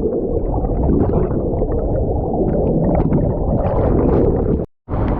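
Waterfall running, a loud, steady low rumble of falling water that cuts out for a moment near the end.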